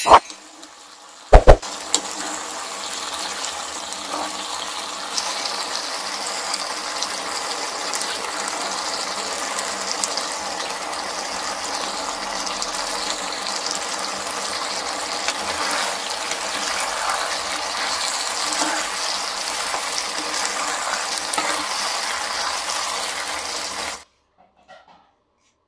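Chilli chicken gravy sizzling steadily in a nonstick pan, with occasional light clicks and scrapes of a spatula. The sound cuts off abruptly near the end.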